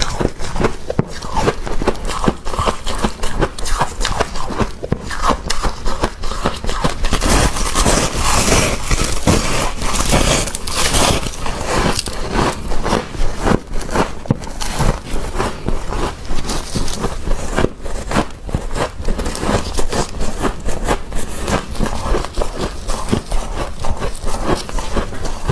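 Freezer frost being scraped and crunched close to the microphone: a dense, unbroken run of crackling scrapes.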